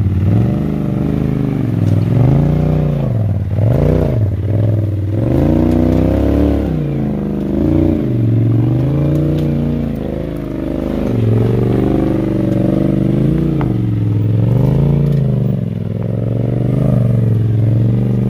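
Polaris RZR side-by-side's engine revving up and down in repeated throttle blips as it crawls up rock ledges.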